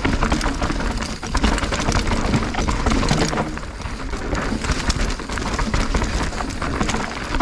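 Mountain bike being ridden down a rocky dirt trail: tyres rolling over rock and dirt with many rattling clicks, and wind rushing on the microphone.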